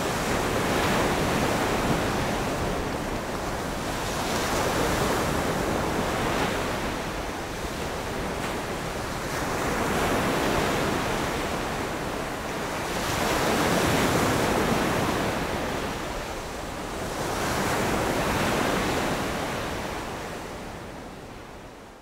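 Sea waves breaking on a sandy beach, the surf swelling and ebbing about every four to five seconds, then fading out near the end.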